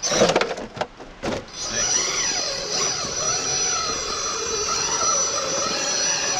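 RC rock crawler's electric motor and gear train whining as it climbs over rock, the pitch rising and falling with the throttle. A few sharp knocks come in the first second and a half, before the whine sets in.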